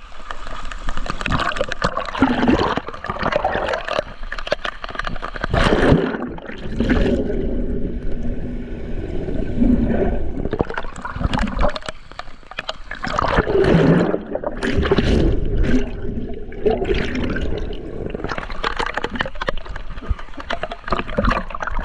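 Water splashing and gurgling close to the microphone as someone swims, in irregular surges that rise and fall every few seconds.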